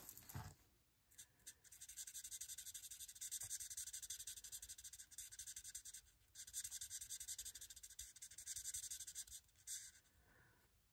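Marker tip scribbling on cardstock in fast back-and-forth colouring strokes: a faint, quick scratching in two stretches with a short pause midway.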